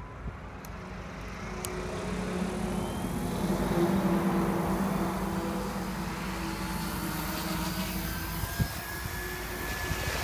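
SAB Goblin 420 electric RC helicopter spooling up: the whine of its motor and rotor rises in pitch and loudness over the first few seconds, then holds steady as the helicopter lifts off. One sharp click comes near the end.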